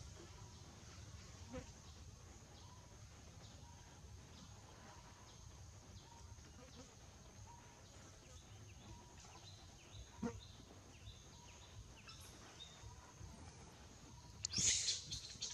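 Quiet forest-floor ambience with a steady high insect drone, a few faint ticks, and a short burst of dry-leaf crackling near the end as the baby macaque moves about on the leaf litter.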